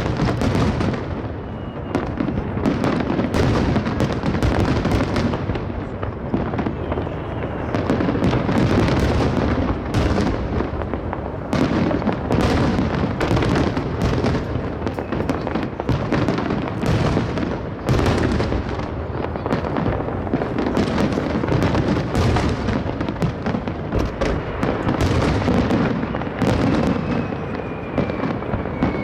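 A dense, continuous barrage of aerial firework shells bursting, overlapping booms and crackles following one another several times a second with hardly a pause.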